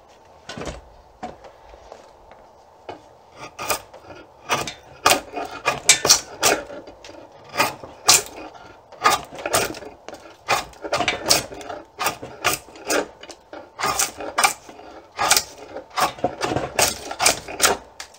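Draw knife shaving Osage orange wood off the back of a bow stave, cutting away the wood above the chosen growth ring. Short scraping strokes, a few at first, then coming about two a second from about three seconds in.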